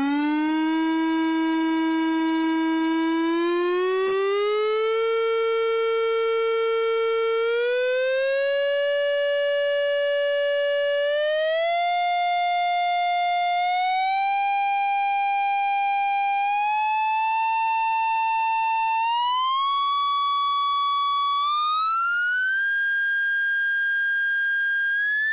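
Test tone from a signal-generator sweep, played through a 1920s Brandes Superior steel-diaphragm headphone and recorded. It climbs from a low hum to a high whistle in a series of short glides and held notes, with a strong buzzy edge of overtones throughout.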